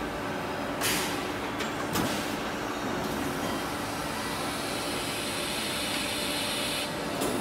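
Sand mold handling and conveying line running, its steel pallet cars rumbling along their rails. Sharp metallic knocks come about a second in, at two seconds and near the end, and a hiss runs for a few seconds in the middle.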